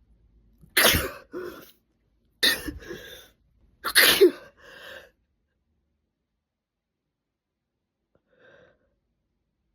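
A woman sneezing three times in a row, about a second and a half apart, each sneeze with a shorter trailing sound after it; the sneezes are induced. A faint short sound follows near the end.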